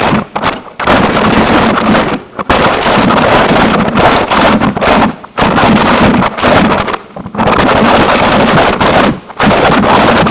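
Harsh noise music: a loud, dense wall of distorted noise filling the whole range, broken several times by abrupt, brief cut-outs.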